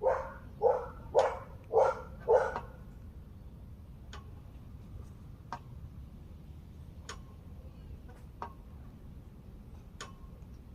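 A dog barking five times in quick succession, followed by scattered faint clicks about once or twice a second.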